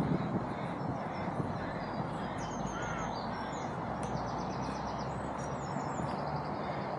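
Wild birds calling: small birds chirping and trilling high, with a couple of lower, gliding calls, over steady outdoor background noise.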